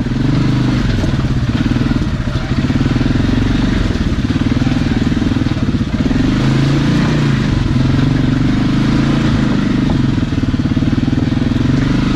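Polaris ACE 570's single-cylinder engine running under load while the machine drives over rough trail, its note rising and falling a little with the throttle.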